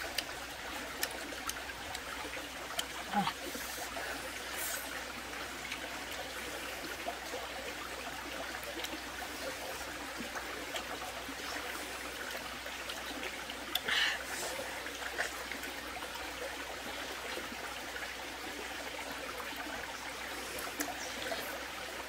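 Shallow stream running steadily over rocks, with a few faint clicks and one short, louder sound about fourteen seconds in.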